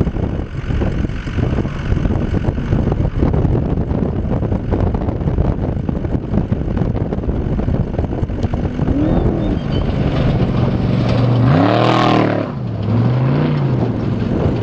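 Off-road trophy truck racing toward and past, its engine revving up in pitch to a loud peak about three-quarters of the way through, then falling away, with a shorter rev just after. A wind-like rumble fills the first half.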